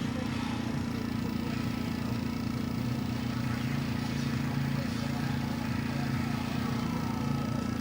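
Small hobby air compressor running with a steady low hum, supplying air to a Gundam Marker airbrush.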